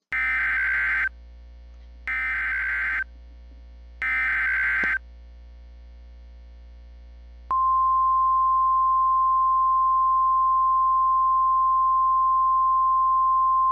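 Emergency Alert System header: three harsh digital data bursts, each about a second long and two seconds apart. About seven and a half seconds in, a loud, steady single-pitch attention tone begins and holds, with a faint low hum underneath throughout.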